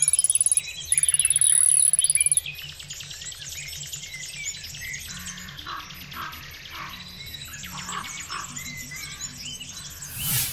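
Background music with a steady beat under many quick bird chirps. A shrill, fast-pulsing high buzz sounds in the first two and a half seconds, with a short break about half a second in.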